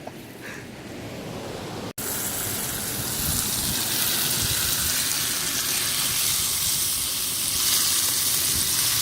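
Food frying over a campfire, a steady sizzling hiss that comes in suddenly about two seconds in.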